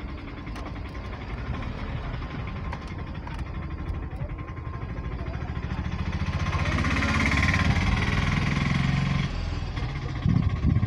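Car engine and road noise heard from inside the cabin while driving. A louder engine sound swells about six seconds in and drops away about three seconds later.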